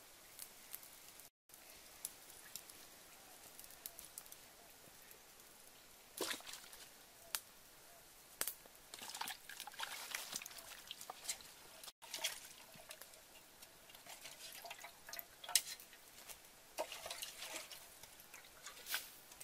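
Water splashing and dripping in a metal pot as hands work something in it, in short scattered bursts with small clicks, busiest in the second half.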